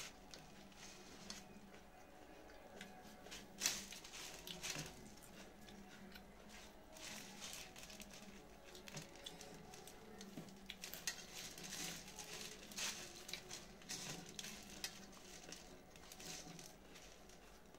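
Faint rustling and crunching of dry puffed rice (muri) being scooped by hand from steel plates and chewed, with scattered soft clicks and one sharper click about three and a half seconds in.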